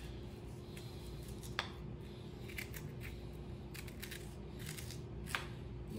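Faint scraping with a few small clicks: a metal spoon scooping the seeds and membrane out of a halved green chili pepper.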